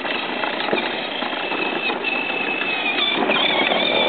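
Battery-powered ride-on toy scooter driving along, its small electric motor and gearbox giving a steady high-pitched whine over the rolling of its plastic wheels on concrete, the whine wavering briefly about three seconds in.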